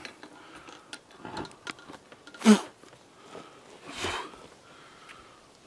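Close breath sounds: short breathy puffs, the loudest about two and a half seconds in and another about four seconds in, with a few light clicks between.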